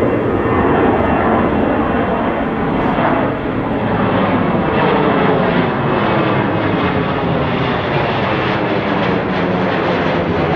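Jet airliner's engines running loud and steady as the plane passes, their whine sliding down in pitch.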